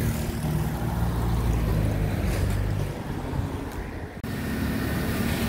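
Wind buffeting the microphone: a steady low rumble that cuts off sharply about four seconds in, giving way to a quieter steady background.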